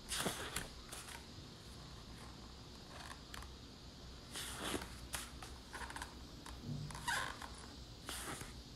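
A few short rustles and scrapes over a faint steady hiss and hum, the strongest right at the start, about halfway through and about three-quarters through.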